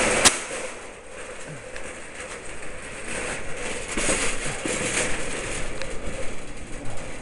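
Rubbing and handling noise on a small action camera's microphone with a sharp click at the start, then a steady background hiss with a faint hum.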